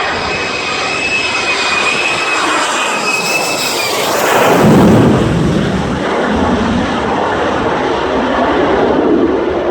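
F-35 fighter jet's single turbofan engine flying past: a high steady whine that drops in pitch about four seconds in, then a low rumble that is loudest about five seconds in and carries on as the jet moves away.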